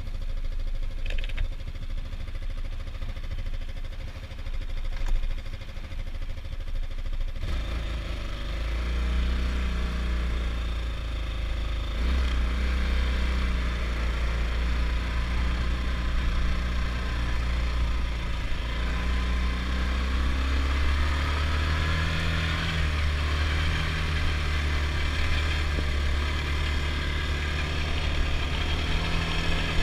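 Adly Hurricane 320 quad's single-cylinder four-stroke engine starts about seven seconds in and then runs steadily at idle. It gets louder a few seconds later, and its pitch lifts a little around twenty seconds in.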